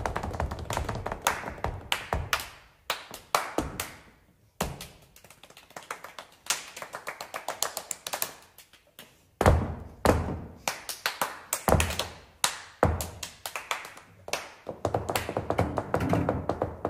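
Body percussion in a contemporary chamber piece: irregular hand claps, slaps and taps by several players, sometimes in quick flurries. The hits are softer and sparser for a few seconds in the middle, then dense again. A few faint held tones come in near the end.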